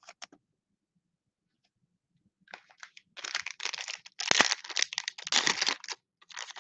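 After a near-silent pause, a dense crinkling crackle begins about two and a half seconds in: the cellophane wrapper of a Panini Mosaic football card cello pack being torn open by hand.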